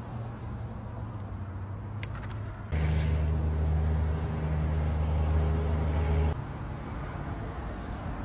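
Background road traffic with a steady low motor-vehicle engine drone. The drone grows much louder for about three and a half seconds in the middle, starting and stopping abruptly.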